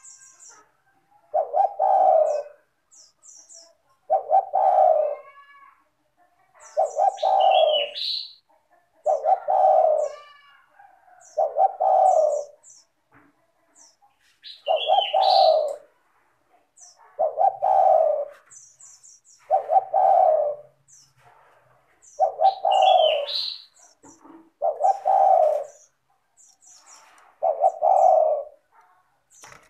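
Spotted dove (tekukur) cooing in an unbroken run of repeated phrases, about one every two and a half seconds, with short high chirps from small birds between the phrases.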